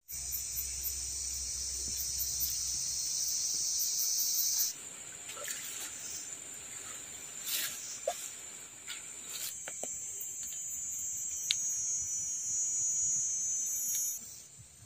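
Steady, high-pitched insect chorus of a tropical forest. It cuts off abruptly about five seconds in and returns at a slightly higher pitch after a few seconds of quieter rustling with a few clicks, then stops again near the end.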